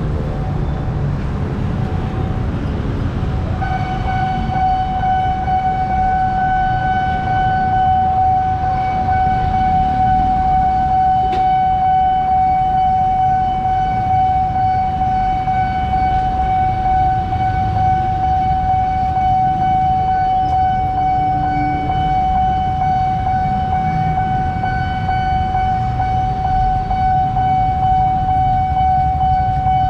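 Level-crossing warning siren of the Nippon Signal type starting about three and a half seconds in and sounding one steady, unbroken high tone, the signal that a train is approaching and the barriers are closing. Underneath it is the steady rumble of idling and passing road traffic.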